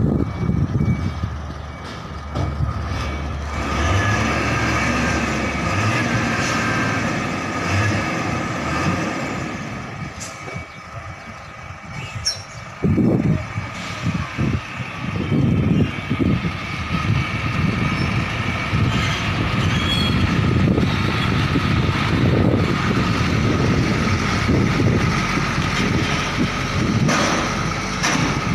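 Heavy diesel truck engines running as trucks manoeuvre slowly. A tractor unit pulling a trailer loaded with two 20-foot shipping containers passes close by in the latter part, and its low engine rumble is the loudest sound.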